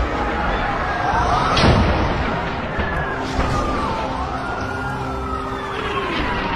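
Airstrike sound effects: wailing tones that glide up and down in pitch over a low rumble, with one blast about two seconds in.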